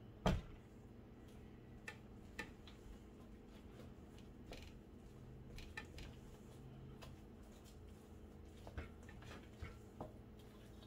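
Soft bread dough being mixed in a stainless steel bowl: scattered light clicks and taps of the spatula against the metal, with one sharper knock just after the start.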